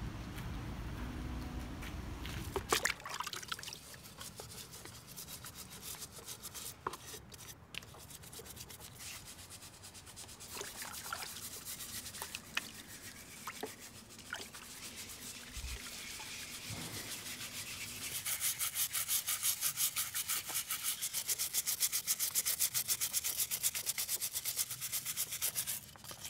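Excavated finds being scrubbed clean by hand, scattered clicks and clinks as objects are handled, then a long run of rapid, even rubbing strokes in the last third.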